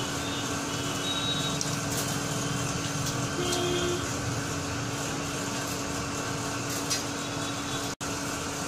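Fully automatic paper plate and dona making machine running steadily: a constant mechanical drone with a steady electric hum. The sound drops out for an instant near the end.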